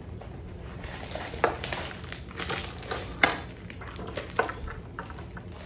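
A foil blind-bag wrapper crinkling and crackling as it is handled and torn open, with a few sharp taps of hard plastic toy pieces, about a second and a half, three seconds and four and a half seconds in.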